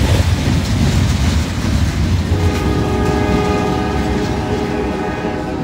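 Double-stack intermodal freight cars rumbling and clattering past over the rails. About two seconds in, a locomotive horn starts a long steady blast over the rumble.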